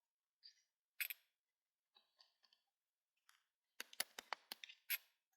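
Scattered sharp clicks and taps from handling the 3D printer's controls, with a quick run of louder clicks about four seconds in.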